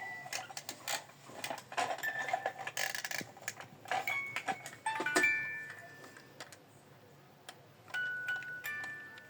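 Rapid clicks and knocks mixed with short bell-like notes, dying down after about five seconds; a few held chime-like notes come in near the end.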